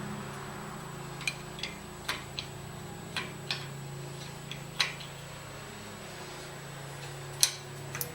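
Irregular sharp clicks and light taps, about ten of them and spaced unevenly, over a steady low hum.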